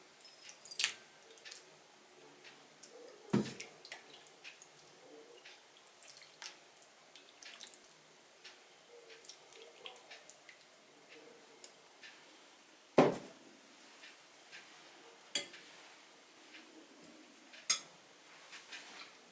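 Dishes and cutlery clinking: scattered light taps and clicks, with a handful of louder sharp clinks several seconds apart.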